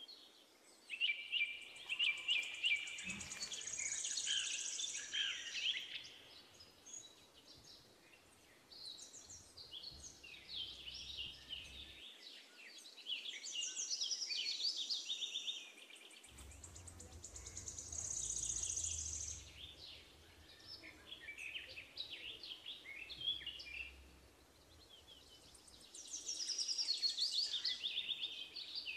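Birds singing: bouts of high chirps and fast trills lasting a few seconds each, coming and going every few seconds.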